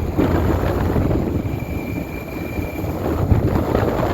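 Outdoor heat-pump condenser unit running, its fan giving a steady low whoosh, with a faint high whine for about a second in the middle.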